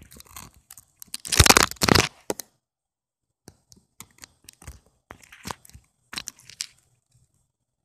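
Crackling, rustling bursts of handling noise on the camera's microphone. The loudest stretch comes about a second and a half in, then scattered crackles and clicks follow until shortly before the end.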